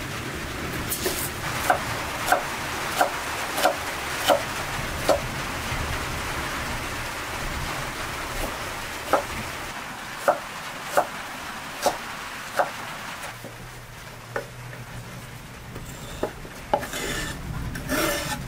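Food sizzling as it fries, with sharp single knocks at a slow, even pace in two runs. The sizzle fades about two-thirds of the way through.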